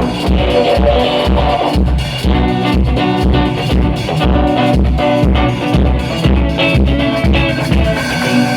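A band playing music, with a steady kick drum about two beats a second under pitched instruments and cymbals; the kick drum drops out near the end.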